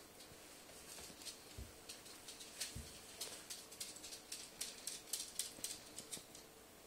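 Faint scuffling of a cat and a Great Dane play-fighting: a scatter of quick scratchy clicks and rustles, thickest in the second half, with two soft thumps about one and a half and three seconds in.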